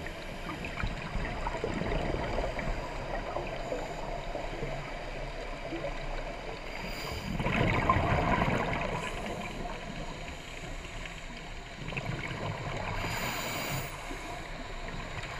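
Scuba regulator exhaust bubbles heard underwater, a steady gurgling hiss. A louder rush of exhaled bubbles comes about halfway through, and a smaller one near the end.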